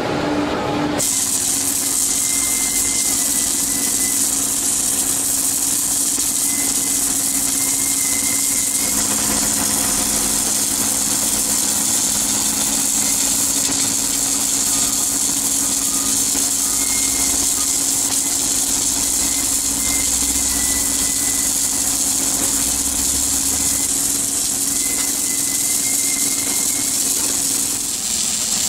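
Steady machine hum under a constant high hiss, changing abruptly about a second in.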